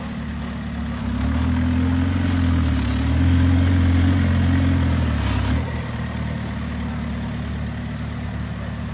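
Toyota Land Cruiser's 1.9 TDI four-cylinder turbodiesel pulling up a rock-crawling climb: the revs rise about a second in and are held for a few seconds, then drop back abruptly to a steady lower run at about five and a half seconds.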